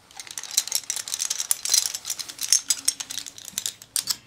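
Thin aluminium blades and hinged metal finger pieces of a homemade clawed glove clinking and rattling against each other as the glove is handled, in a rapid, irregular run of sharp metallic clicks.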